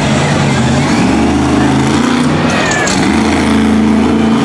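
Monster truck engine running hard at a steady pitch. It eases off briefly about three seconds in, then revs back up.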